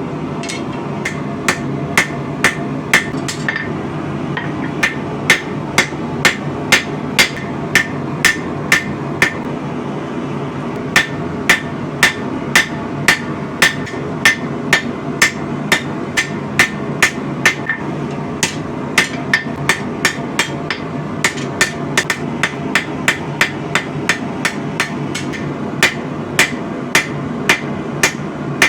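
Hand hammer striking hot spring steel on an anvil while rough-forging a blade: runs of sharp strikes about two a second, each with a short ring, broken by brief pauses every several seconds, over a steady low roar.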